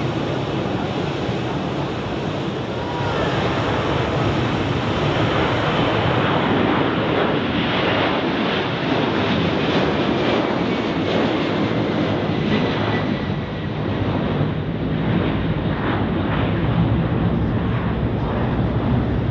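Twin jet engines of a Boeing 767-300ER at takeoff thrust, a loud steady rush of engine noise that swells about three seconds in and stays loud, with a faint whine heard through the middle.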